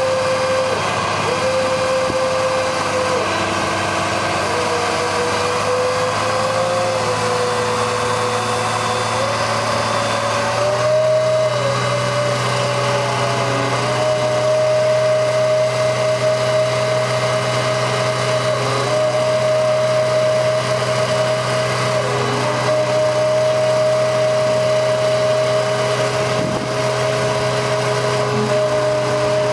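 Digger derrick truck's engine running its hydraulic auger drive, a steady mechanical hum with a whine that wavers under load and steps up in pitch about a third of the way in, then holds.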